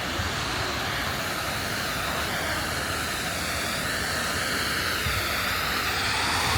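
Steady rushing outdoor noise at an even level, with a faint wavering hum in the middle few seconds.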